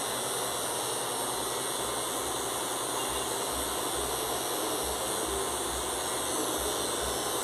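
Cordless electric hair clipper running with a steady hissing buzz as its blade trims close-cropped hair in a fade.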